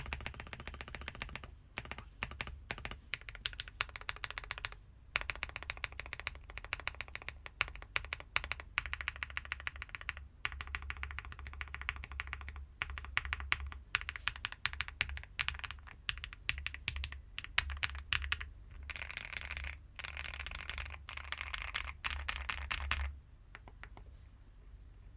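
Typing sound test on a fully built Cidoo V65 65% mechanical keyboard with hand-lubed KTT switches, lubed stabilizers, foam and tempest-tape mods and stock keycaps: a steady stream of fast keystrokes with short pauses, stopping near the end.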